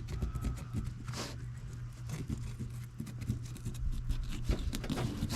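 Dexter fillet knife cutting and scraping through a walleye on a board: a run of short, irregular scratchy clicks and scrapes.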